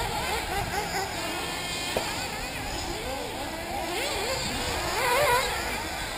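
Several 1/8-scale nitro RC buggy engines revving, their high whines rising and falling in pitch as the cars run the track, one rising loudest about five seconds in. A single sharp knock sounds about two seconds in.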